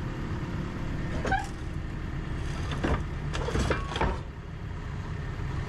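Komatsu 160 excavator's diesel engine running steadily, with several sharp knocks about a second in and a cluster around three to four seconds in.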